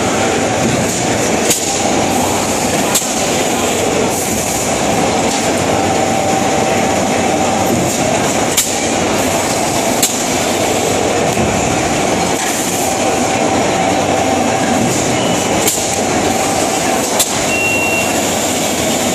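Lanson GT2-LS360B thin-wall injection moulding machine cycling, moulding 1000 ml containers four at a time. Under a steady mechanical noise, pairs of sharp clacks come about a second and a half apart, each pair repeating roughly every seven seconds with the machine's moulding cycle.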